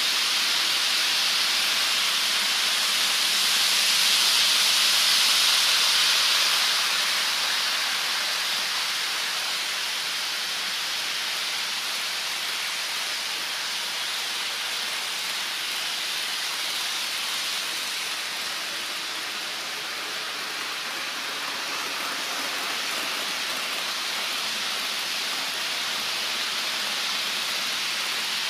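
HO scale model freight trains rolling along the track: a steady hiss of wheels and motors that swells about four to six seconds in and eases off near twenty seconds.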